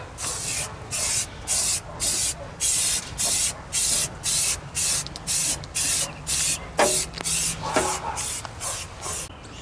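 Paint being sprayed in short, quick bursts of hiss, about two a second.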